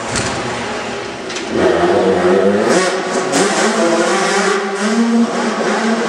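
Motocross bike engine revving, its pitch rising and falling again and again as the throttle is opened and closed.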